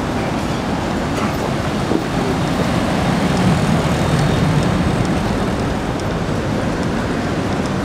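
Steady street traffic noise from passing road vehicles, with a deeper rumble swelling and fading around the middle.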